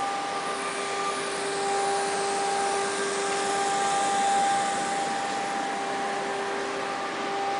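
Industrial machinery running steadily: a constant whirring hum with several steady whining tones over it.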